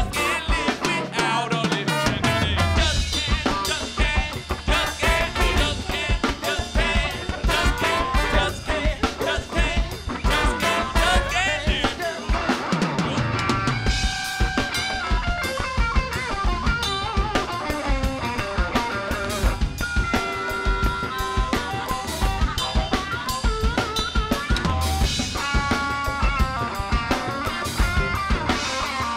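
Live funk band playing an instrumental passage: drum kit with rimshots, snare and bass drum keeping a steady beat under bass and electric guitar, with trombone and trumpet.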